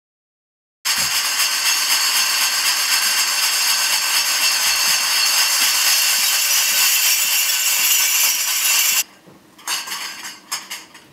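Dense, continuous jangling of metal cutlery and bowls on stage costumes, starting suddenly and cutting off abruptly about nine seconds in. A few scattered metallic clinks follow near the end.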